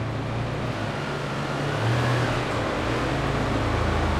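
Steady low hum and road noise of a car under way.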